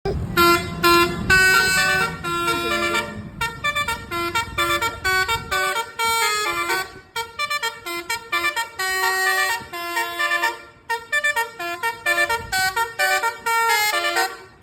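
Basuri (telolet) multi-tone truck horn playing a fast melody of short, chiming notes. A low rumble runs under the first five seconds or so.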